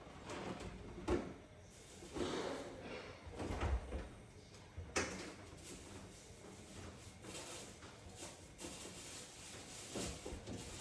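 Kitchen handling sounds: scattered soft knocks and a sharp click about five seconds in, from drawers or doors being opened and shut.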